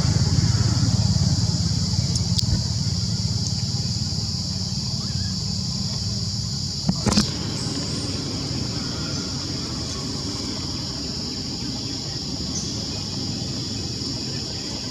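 Steady high-pitched insect chorus, with a low rumble fading over the first few seconds and a sharp click about seven seconds in.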